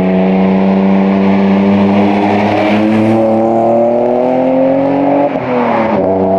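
BMW M52B28 2.8-litre straight-six, swapped into an E30 with a custom exhaust, pulling under acceleration, its note rising steadily through a gear. Near the end comes an upshift, and the engine drops in pitch and climbs again.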